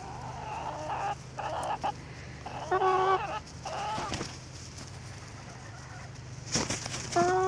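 Hens squawking and calling while scrambling for pieces of bread: rough squawks in the first two seconds, then a loud, level, honking call about three seconds in and another near the end.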